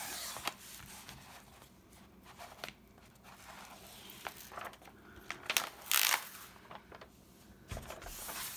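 Protective cover film being peeled back off the sticky adhesive of a diamond painting canvas, with irregular crinkling and crackling of the sheet, loudest a little past halfway.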